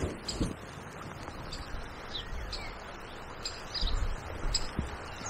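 Small birds chirping in short, scattered calls over a steady wash of flowing river water, with a few low bumps near the end.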